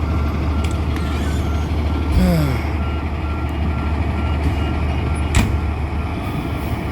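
A fire truck's reversing alarm beeping steadily over its idling engine's low rumble; the beeping stops about five seconds in. A sharp knock comes just after.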